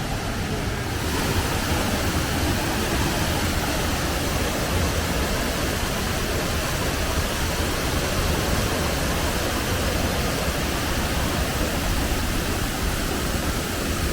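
Waterfall rushing, a steady noise of falling water that becomes fuller and hissier about a second in.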